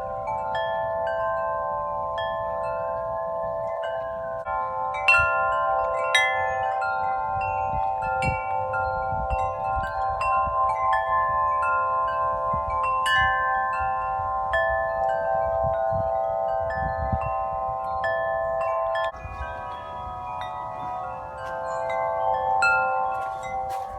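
Several large tuned wind chimes (Bells of Vienna, Corinthian Bells and Nature Melody chimes) ringing in gusty wind. Deep tones hold and overlap while quicker, higher notes are struck on top at irregular moments.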